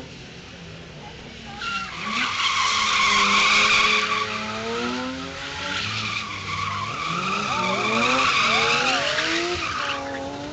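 BMW M3 drifting: its tyres start screeching about two seconds in and keep screeching until near the end, over the engine revving up and down.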